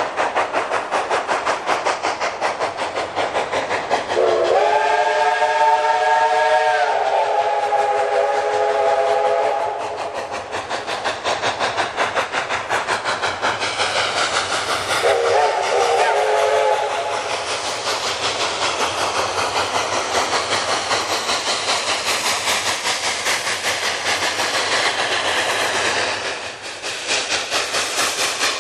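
Narrow-gauge steam locomotive blowing its chime whistle, one long blast of about five seconds that slides up in pitch as it opens, then a shorter blast about ten seconds later. Between the blasts the engine's exhaust chuffs rapidly as it works toward the camera.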